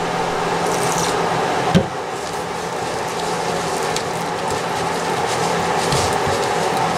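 Wooden spoon stirring and scraping a stiff flour dough in a stainless steel bowl, with a sharper knock of the spoon against the bowl about two seconds in, over a steady background hum.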